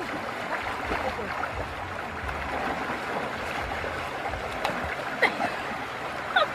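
Shallow river flowing fast over rocks: a steady rush of water. Near the end come a couple of short, high shrieks of laughter.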